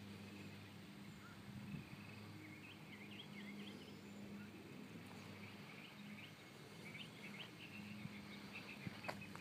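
Quiet outdoor ambience: small birds chirping in short clusters of quick notes, over a faint steady low hum.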